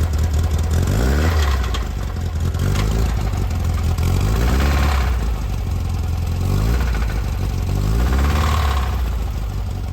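Air-cooled VW 2007cc single-port stroker flat-four running and revved up and back down three times, with the weird rattly, knocky noise it had developed. The teardown traced the knock to a broken oil control ring that had badly gouged cylinder 4, leaving it low on compression.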